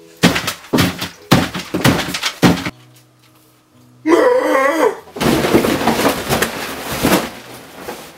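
Several loud thuds in the first few seconds. Then, about four seconds in, a wavering yell, followed by a long, loud crash and clatter as a table with plates on it is knocked over.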